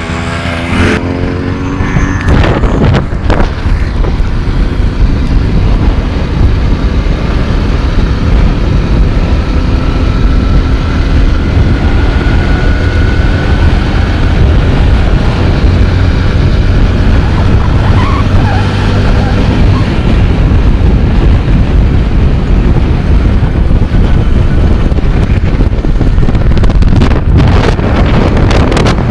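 Loud wind rumble on the microphone of a moving motorcycle, with the engine running steadily underneath.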